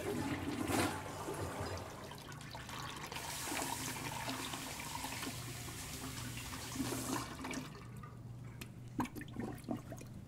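Toilet flushing with a rush of water at the start. About three seconds in, a sink tap runs steadily for around four seconds and is then shut off, followed by a few small clicks.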